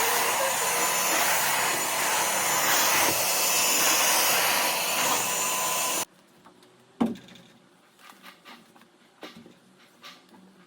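Deerma DX700S handheld vacuum cleaner running with a steady rushing motor noise, switched off about six seconds in. About a second later comes a single knock, then a few faint light taps.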